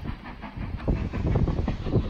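LMS Black Five 4-6-0 steam locomotive No. 45231 working hard on an uphill climb, its exhaust beats heard from a distance and growing louder about a second in.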